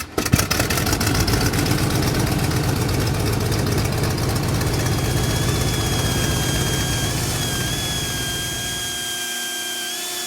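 A machine running steadily, with a fast even rattle and a low rumble; a steady high whine comes in about halfway, and the low rumble drops away near the end.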